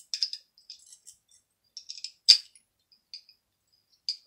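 Light metallic clicks and clinks from the slide and small parts of a 1911 pistol being handled during reassembly. A scatter of small ticks, with one sharper click about two seconds in and another near the end.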